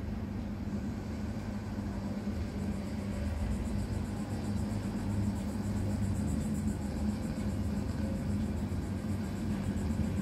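Steady low rumbling noise with no speech, heard through a television speaker, growing slightly louder about halfway through.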